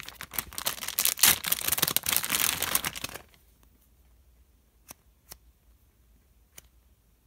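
Plastic packaging pouch crinkling and rustling loudly for about three seconds as a foam squishy toy is pulled out of it. Then near quiet, with a few faint clicks.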